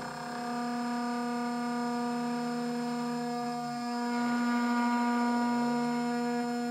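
Milling machine running while it machines an aluminium part: a steady, high whine, with a lower tone that rises and falls in pitch every few seconds.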